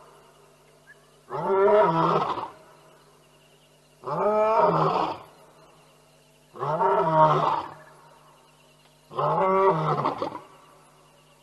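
Lion roaring at night: four deep roars about every two and a half seconds, each lasting about a second.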